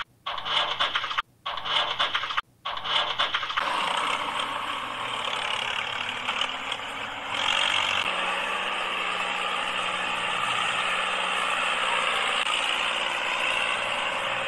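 Small electric motor and gearbox of a homemade toy tractor whirring as it drives. The sound is broken by short silences in the first three seconds, then runs steadily.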